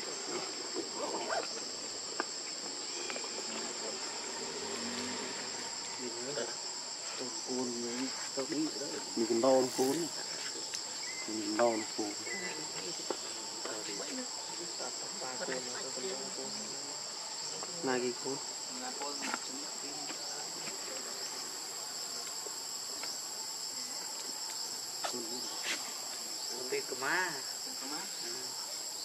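Steady, high-pitched insect drone, with a few short calls now and then, the loudest about ten seconds in.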